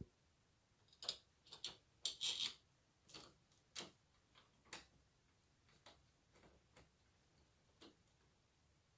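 Irregular small clicks and brief metal scrapes from doorknob hardware being handled and fitted, with a quick cluster of clicks about one to two and a half seconds in.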